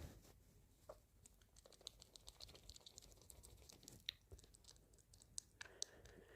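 Near silence with faint, scattered small clicks and ticks at irregular intervals.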